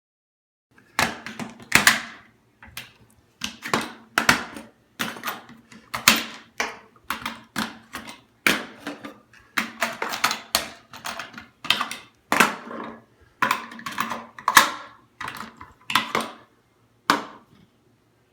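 Rounds of .223/5.56 ammunition being pushed one by one into an AR-15 magazine with a speed loader: a run of sharp plastic-and-metal clicks and snaps, nearly two a second at an uneven pace, that starts about a second in and stops just before the end.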